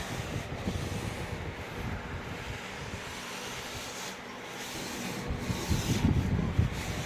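A cleaning wipe rubbing and scuffing over the inside of a tube tester's case, with irregular low thuds of handling. It eases off a little midway.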